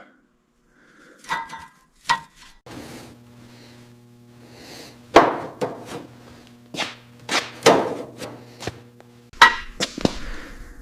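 A series of sharp knocks and clanks, some ringing briefly, like tools striking metal, over a steady hum that starts a few seconds in and stops near the end.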